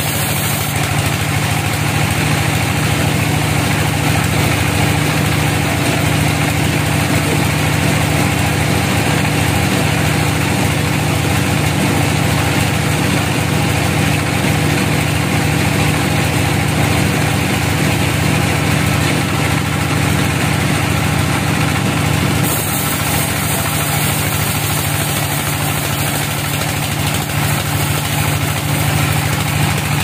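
Band sawmill running with a steady, loud drone, its band blade sawing along an old teak log. A hissing cutting noise joins about a second in and eases off at about 22 seconds in, while the machine drone carries on.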